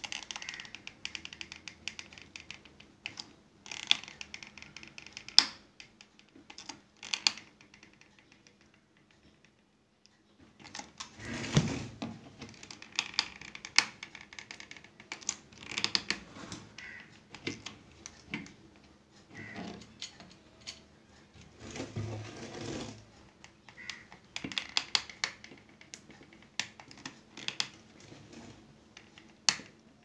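Hot glue gun being worked around the base of a cooler module on a plastic ice box: irregular clicks and taps, with a few louder handling knocks about a third and two-thirds of the way through.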